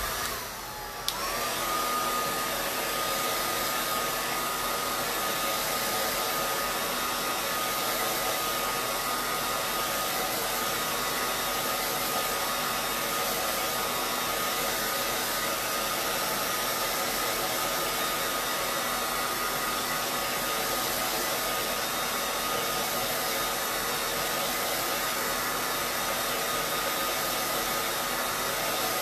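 Handheld hair dryer switched on, its motor whine rising to a steady pitch about a second in, then blowing steadily with an even rushing air noise.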